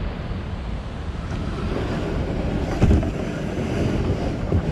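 Wind buffeting the microphone with a steady low rumble, broken by a dull thump about three seconds in and a smaller one near the end.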